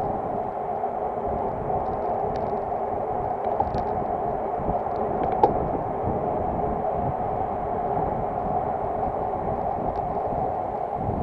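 Steady rushing wind and road noise on a bicycle-mounted action camera riding in a group of road cyclists, with one sharp click about five seconds in.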